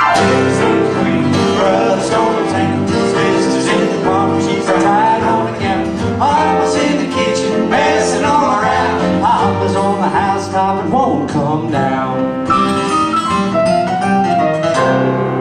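Two acoustic guitars playing a folk song live.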